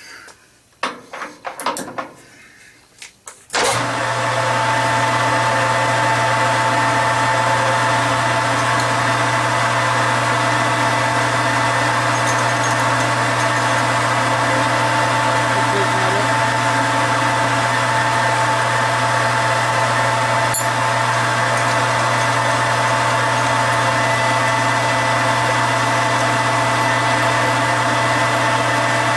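A few knocks, then a metal lathe starts about three and a half seconds in and runs steadily: a constant motor hum with a steady high-pitched whine from the drive.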